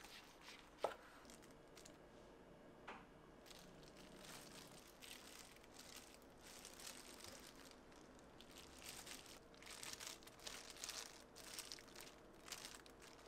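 Faint crinkling of a disposable plastic glove as a hand picks up kimbap slices and sets them on a plate. A sharp knock about a second in is a knife coming down through the roll onto a wooden cutting board.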